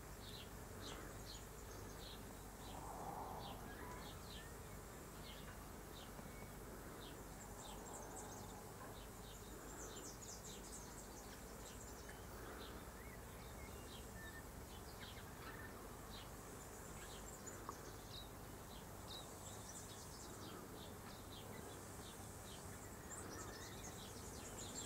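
Faint outdoor ambience: a continual run of short, high chirps, a few every second, over a low background hiss.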